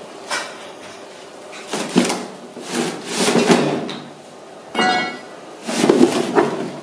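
A series of scrapes and knocks, including one long scrape, with a brief squeak about five seconds in.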